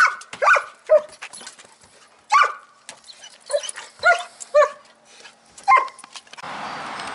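German shepherd barking excitedly from inside a car's boot, eager to go to training: about eight sharp barks at uneven intervals. Near the end they give way to a steady hiss.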